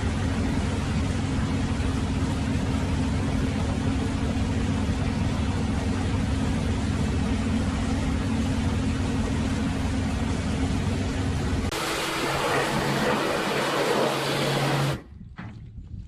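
Farm tractor engine running steadily. The sound changes abruptly about twelve seconds in and stops about a second before the end.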